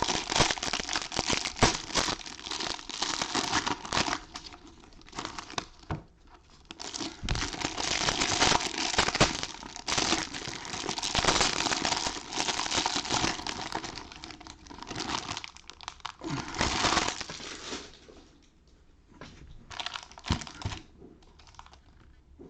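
Plastic wrappers of Topps Series 1 baseball card packs crinkling as they are torn open and handled, in spells of dense crackling with short quieter pauses.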